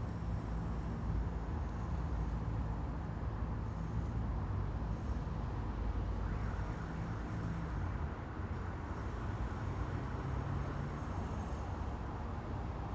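Room ambience with street traffic heard from inside: a steady low rumble of passing vehicles, with a faint engine hum rising and falling.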